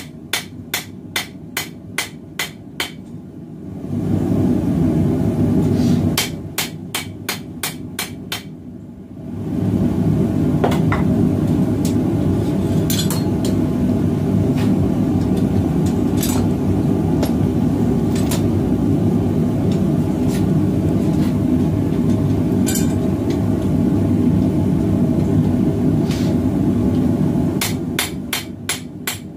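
Hand hammer striking hot 1080 carbon steel on an anvil in quick runs of about three to four blows a second. Between the runs a propane forge's burner runs with a loud, steady low roar, with a few scattered clinks over it.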